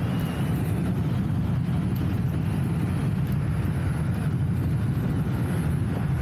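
Wind buffeting the microphone on an electric unicycle ridden at speed: a steady low rumble.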